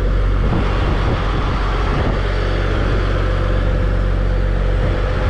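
Kenworth crane truck's diesel engine running steadily, powering the hydraulic crane as it lifts a cable reel, with wind rushing over the microphone. A thin steady whine comes in about halfway through.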